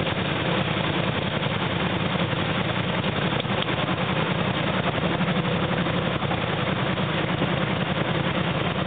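Steady engine noise of off-road vehicles: a small 4x4 SUV crawling up a steep rocky dirt slope, with a quad bike's engine running alongside.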